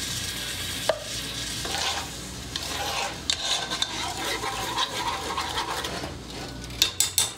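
Watery curry sauce cooking in a pot on the stove while a hand stirs and works the contents, a steady wet, frying-like noise. There is a single sharp click about a second in and a quick run of sharp clicks near the end.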